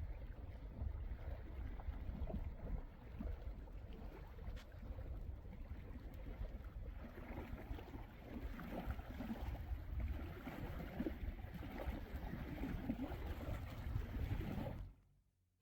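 Faint outdoor ambience: a low, steady rumble with an irregular rustling texture, like wind and water. It cuts off abruptly near the end.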